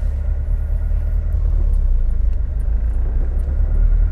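Porsche 356 Carrera 2's air-cooled four-cylinder boxer engine and road noise while driving, a steady low rumble.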